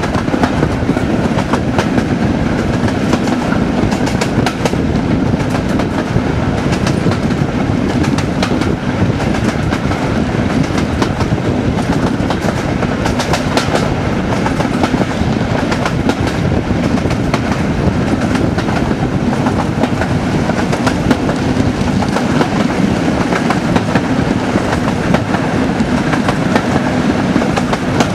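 Class 37 diesel locomotive's English Electric V12 engine working hard (a 'thrash'), heard from a carriage window behind it: a loud, steady drone, with wheels clicking over rail joints and wind rushing past.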